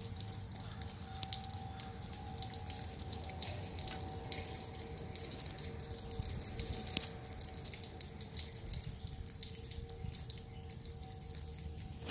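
Eerie steady hum in the sky: two held tones, one low and one a little higher, over a faint low rumble, with many small clicks scattered through it. The uploader takes it for distant construction or highway noise distorted by temperature layers in the air.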